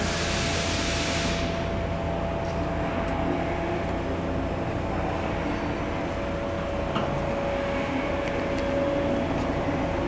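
Steady low hum and rumble of factory machinery with a faint steady tone over it, a brief hiss at the start, and a few faint clicks.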